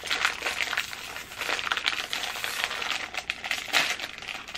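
Foil-lined plastic snack wrapper crinkling and crackling as it is worked open by hand, with many small irregular clicks.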